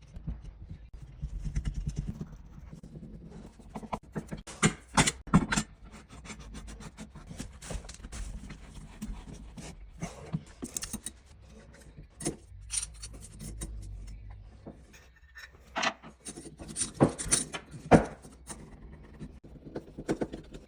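Irregular clicks, knocks and rubbing as shower trim parts and tools are handled and fitted, with a low rumble at times; the sharpest knocks come around five seconds in and again near the end.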